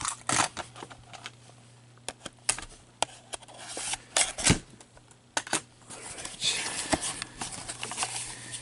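Plastic shrink wrap being cut and peeled off a cardboard card box: small clicks and ticks of the blade and box, then crinkling plastic as the wrap is pulled away, louder over the last few seconds.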